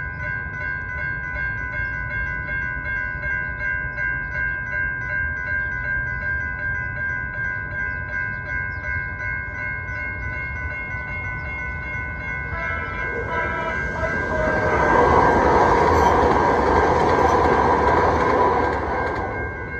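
Grade-crossing warning bell ringing steadily and rapidly. About fourteen seconds in, a three-car MTS light rail train rumbles loudly through the crossing for about five seconds, with the bell still ringing, then fades.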